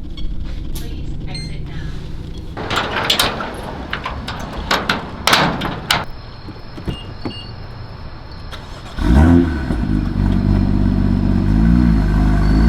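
Street noise with several sharp knocks in the first half, then, about nine seconds in, a motor vehicle's engine starts up loudly and runs on, its pitch rising and falling as it revs.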